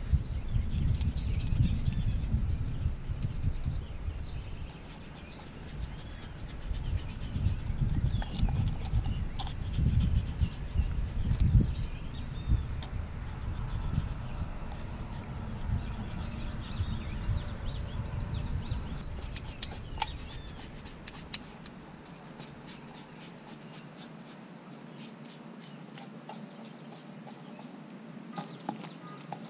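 Kitchen knife scraping the slime off a scaleless catfish's skin against concrete, in a run of short strokes and taps. Birds chirp in the background, and a low rumble fades out after about twenty seconds.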